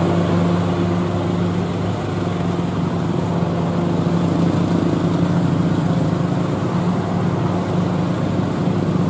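Heavy diesel tronton truck loaded with concrete U-ditch segments, its engine running in a steady low drone as it climbs slowly under load, with other traffic passing close by.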